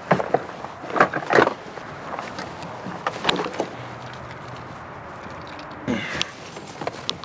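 Gear clattering into a minivan and its sliding door being pulled shut: a run of sharp knocks and clunks in the first three and a half seconds. A brief low hum follows about four seconds in, then rustling and a couple of knocks as the driver's door is opened near the end.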